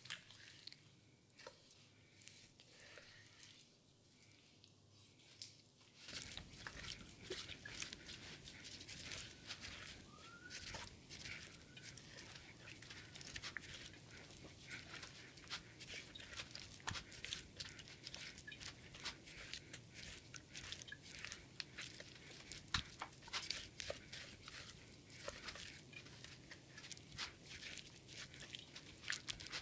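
A 250mm gyuto chef's knife cutting through raw pork shoulder on a wooden cutting board: soft wet slicing and tearing of meat, with the blade clicking and tapping on the board. Fairly quiet for the first few seconds, then a steady run of cuts and taps.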